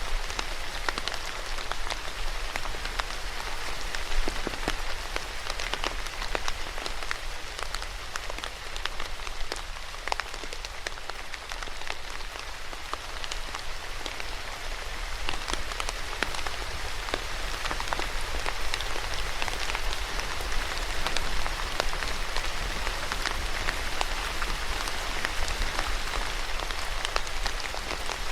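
Steady rain falling, a dense even hiss with many individual drops pattering on a surface.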